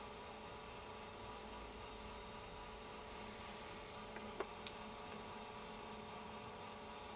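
Faint steady hum and hiss made up of several steady tones, with three short clicks a little past halfway, the middle one the loudest.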